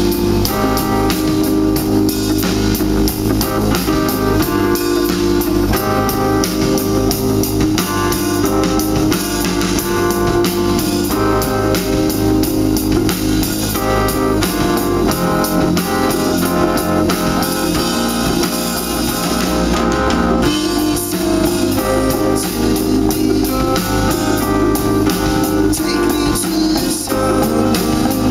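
Live band music played loud over a stage PA: a drum kit keeping a steady beat under electric guitar and keyboards.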